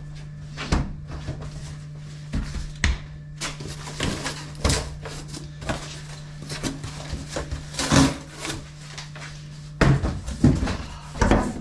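Cardboard box blank being handled and folded by hand, rustling and flexing, with scattered knocks and clacks of things set down on a workbench, over a steady low hum.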